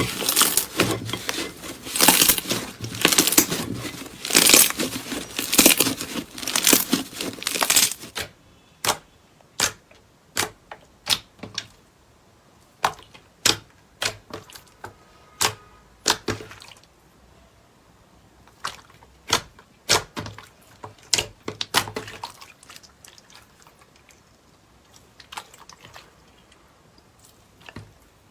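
Slime being squeezed and worked by hand: dense, loud crackling and popping, then after about eight seconds a quieter run of separate sticky clicks and pops, about one or two a second.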